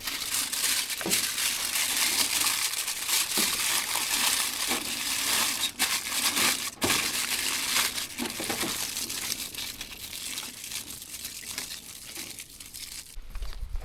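Aluminium foil crinkling and rustling as it is handled and folded, a dense crackle that thins out toward the end.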